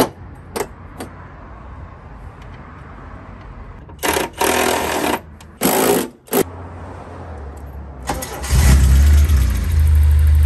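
A cordless drill runs in two short bursts, driving screws into a battery hold-down bracket. About eight seconds in, the 1984 Porsche 944's 2.5-litre four-cylinder engine cranks briefly, catches and settles into a steady idle.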